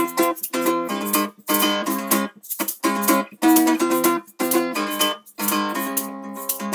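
Acoustic guitar strummed in chords, sped up so that it sounds high like a ukulele, with a maraca shaking along. The strumming breaks off briefly several times.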